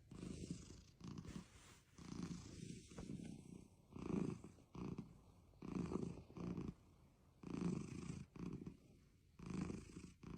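Domestic cat purring softly, a low rumble that swells and fades with each breath, about one pulse a second.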